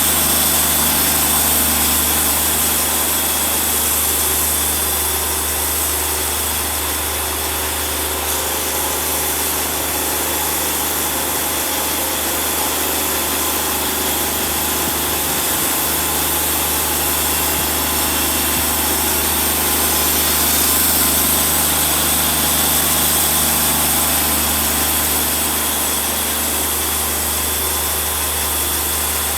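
Wood-Mizer portable band sawmill running steadily, its engine holding speed as the band blade saws through a log.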